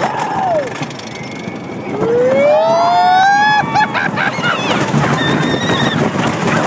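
Riders screaming on a wooden roller coaster as the train drops: one long scream rising in pitch about two seconds in, then a loud rush of wind and track noise with more yelling.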